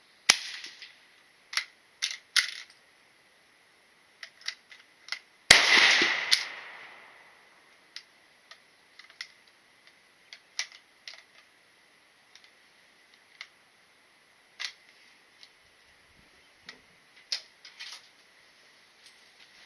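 Gunfire at a shooting range: a sharp shot right at the start and a louder one about five and a half seconds in with a long decaying echo, with scattered smaller clicks and knocks between and after them.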